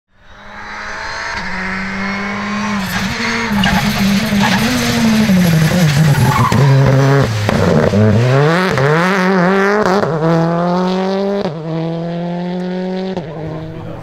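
Citroën C3 R5 rally car's turbocharged four-cylinder engine run hard at high revs, with sharp crackles. The pitch drops under braking and downshifts about halfway, rises again as it accelerates, then steps through gear changes near the end. The sound fades in at the very start.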